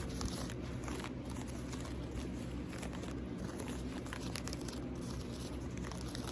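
Light ASMR tapping and scratching on an object: many small, irregular clicks over a steady low hum.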